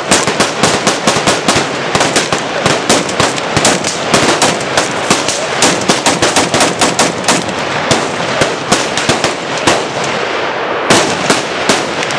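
Dense, rapid rifle fire from several guns at once: overlapping sharp shots, several a second, with no let-up. Tannerite explosive targets go off among the shots, and there is a louder cluster about eleven seconds in.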